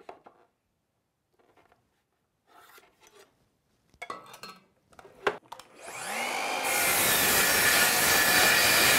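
A few light knocks as a pine board is set on the saw, then a Worx sliding miter saw starts about six seconds in, its motor whining up to speed and running loud as it crosscuts the board.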